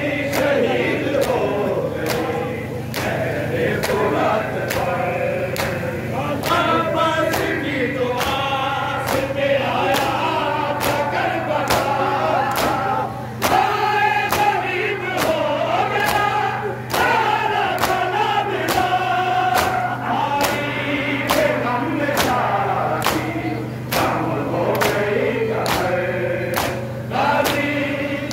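A group of male mourners chanting a noha (Shia mourning lament) together, over a steady beat of sharp chest-beating (matam) slaps.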